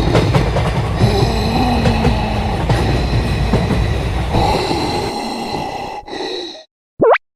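A train running past, a loud rumble with steady high squealing tones over it, which cuts off suddenly about six and a half seconds in. Then comes a short swooping cartoon sound effect near the end.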